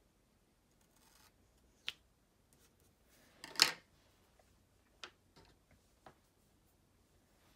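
Hands handling washi tape and planner paper: a few light ticks and one louder short scratchy rustle about three and a half seconds in.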